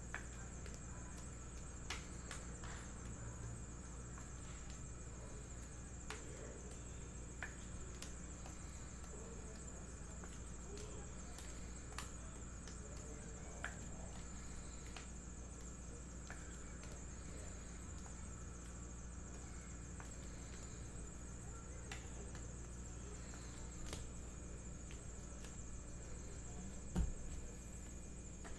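Sparse light clicks and taps of trading cards being handled and slid into rigid plastic toploaders, over a steady electrical hum, with one louder low thump near the end.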